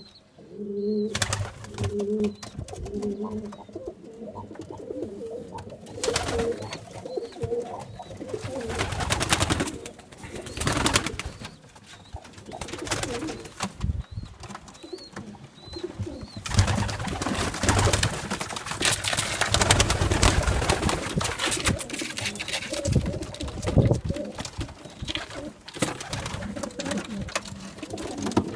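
Pigeons cooing, low repeated coos, with loud bursts of rustling and flapping-like noise through most of the stretch after the first few seconds.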